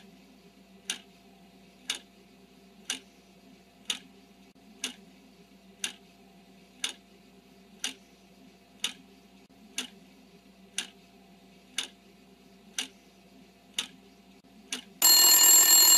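Clock-ticking countdown sound effect, about one tick a second over a faint steady hum, marking the time to answer a quiz question. About fifteen seconds in, a loud ringing bell like an alarm goes off to signal that time is up.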